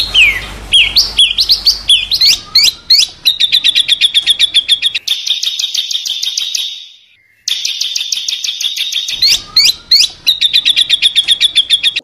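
Songbird singing a harsh, fast series of sharp repeated notes. It opens with quick downward-slurred whistles and breaks off briefly about seven seconds in before the rapid chatter resumes.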